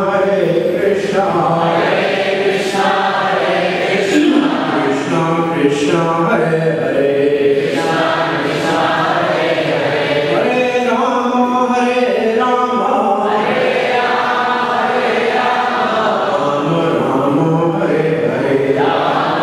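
A group of voices chanting Sanskrit verses in unison, led by a man's voice, in a steady recitation at one even level.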